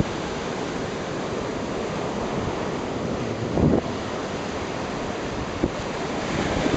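Ocean surf washing onto a sandy beach, a steady rushing wash, with wind buffeting the microphone; one short louder buffet a little past halfway.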